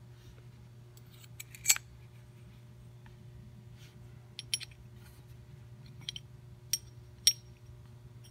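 Light metallic clicks and clinks as a thin steel spring washer and backing washer are handled and seated into a VANOS hub. There are a few scattered ticks, the loudest about two seconds in, over a steady low hum.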